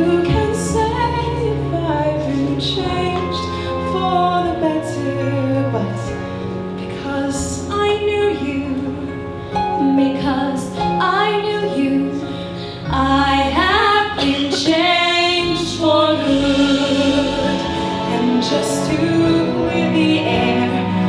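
Two singers performing a slow musical-theatre ballad duet over instrumental backing, with long held notes and passages where the voices move together in harmony.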